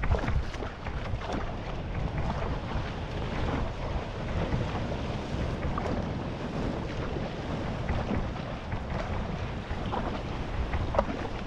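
Wind buffeting the GoPro's microphone in a steady rumble, with water splashing and sloshing around a Polynesian outrigger canoe (va'a) on the sea.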